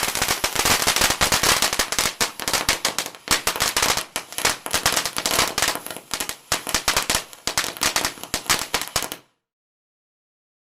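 Firecrackers going off in a fast, dense run of sharp pops, cutting off suddenly near the end.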